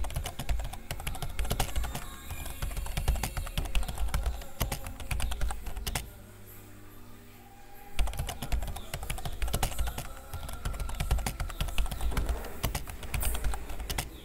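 Rapid, irregular clicking like keyboard typing over a deep, steady low bass, with a pause in the clicks about six seconds in that lasts roughly two seconds.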